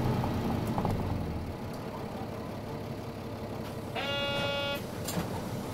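Low engine noise of a Nissan Diesel Space Runner city bus heard from inside the cabin, easing off after about a second and a half. About four seconds in, a short electronic buzzer tone sounds once for under a second.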